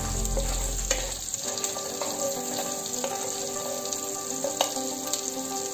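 Butter with mustard seeds and chopped garlic sizzling in a nonstick frying pan as the garlic fries toward golden brown. A spatula stirs it, with a few light clicks, and a low hum stops about a second and a half in.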